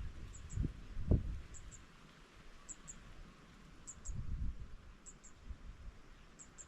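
Faint, high double chirps repeating steadily about once a second, from a small bird or insect. Low thumps and rumbles break in about a second in and again around four seconds, louder than the chirps.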